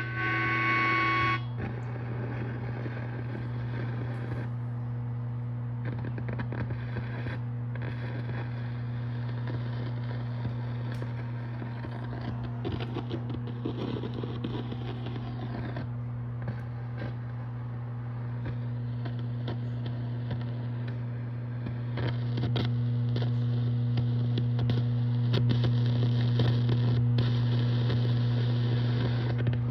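Mesa/Boogie Mark V guitar amplifier humming steadily, with irregular crackling and hiss over the hum that grow louder about two-thirds of the way through. This is the noise fault shown in the new amp. A short pitched note stops about a second in.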